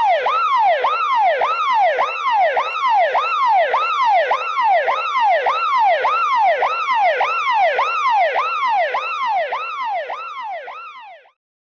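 Electronic siren sweeping quickly up and down in pitch, about two sweeps a second, fading out near the end.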